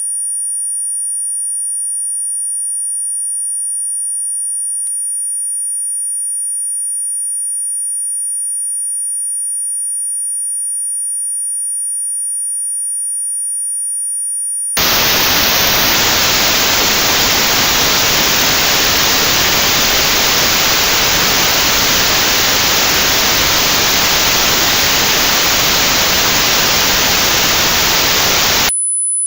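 A steady, very high-pitched pure test tone for about fifteen seconds, which then switches abruptly to notched white noise: a loud even hiss with a band of the highest frequencies cut out, matched to a tinnitus pitch. Near the end the hiss stops and a new, slightly higher pure tone begins.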